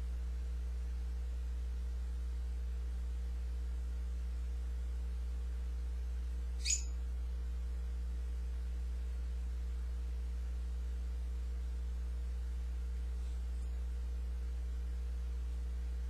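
Steady low hum throughout, with one short high chirp from an African grey parrot about seven seconds in, and two much fainter high sounds later.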